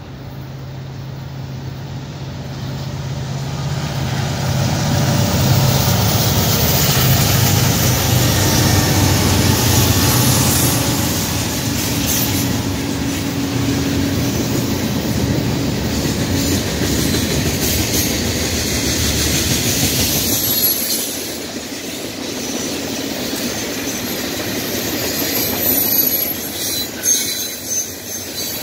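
A lash-up of EMD diesel-electric freight locomotives (an SD40E, an SD70MAC and an SD70ACe) approaches and passes with a deep engine drone that builds over the first few seconds and fades after about twenty seconds. The freight cars then roll by with steady wheel rumble, rail-joint clicks and a few brief wheel squeals near the end.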